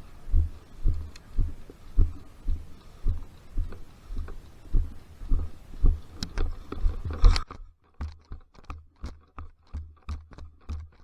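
Footsteps of a player walking, each step a dull thump, about one and a half a second. A sharp click comes about seven seconds in, and after it the steps come faster.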